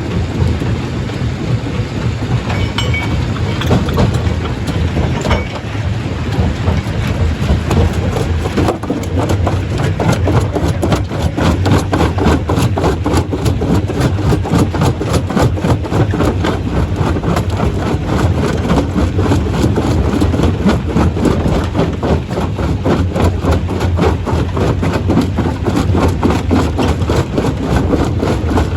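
Stone crusher plant running: a continuous heavy mechanical rumble with a dense, fast rattle. About nine seconds in, the sound changes and the hiss above drops away.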